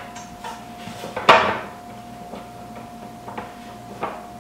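Screwdriver and screw knocking against a ceiling fan's metal motor housing while a blade screw is started: one loud clank with a short ring a little over a second in, and a few lighter clicks.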